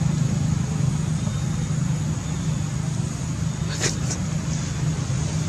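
Steady low engine rumble, with two short sharp clicks a little under four seconds in.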